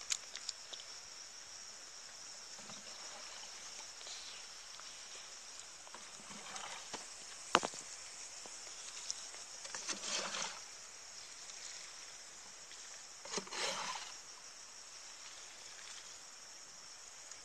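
Water poured from a small container onto the soil at the base of seedlings, in about three short splashes, with one sharp knock about halfway through. A steady high insect drone runs underneath.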